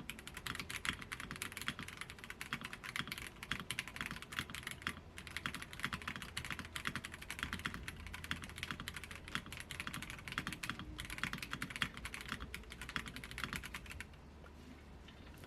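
Fast, continuous typing on a Royal Kludge RK-H81 mechanical keyboard with brown switches, rapid key clicks and clacks with short pauses. The typing stops about a second before the end.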